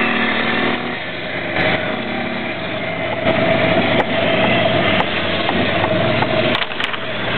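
Riding lawn mower's small engine running steadily as the mower drives off across the field, with a steady whine through the middle.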